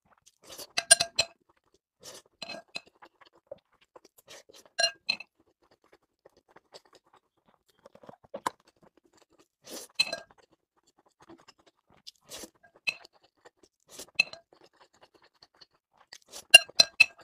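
A spoon clinking and scraping against a glazed ceramic bowl as rice is scooped up. The short ringing clinks come in small clusters every couple of seconds, loudest about a second in and again near the end.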